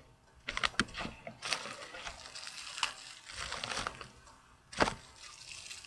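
Packaging rustling and crinkling as items are handled, with a few sharp clicks early and one sharp knock just before the end.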